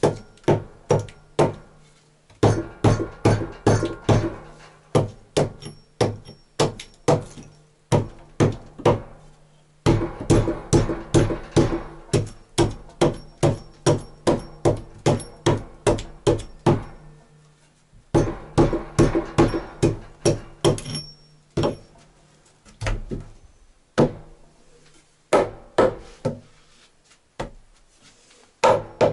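A hammer striking wood while a door jamb is fitted in a log cabin doorway: runs of quick blows, about three to four a second, with short pauses between runs.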